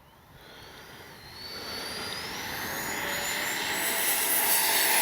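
Electric ducted-fan jet's 80mm twelve-blade fan throttling up for takeoff, its whine rising steadily in pitch and getting louder, levelling off near the end.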